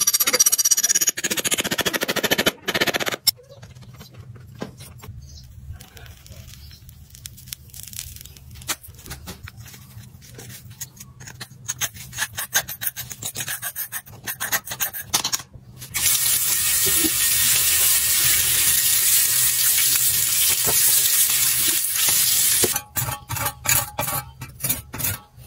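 Metal tools scraping and packing foundry moulding sand around a cleaver pattern. About two-thirds of the way in there is a loud steady hiss for several seconds. Near the end a cleaver blade is stroked quickly back and forth on a sharpening stone, about three strokes a second.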